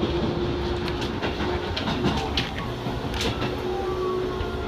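Keisei 3700-series electric train running at speed, heard from inside the leading car: a steady wheel-on-rail rumble with a constant hum and irregular sharp clicks as the wheels pass over rail joints.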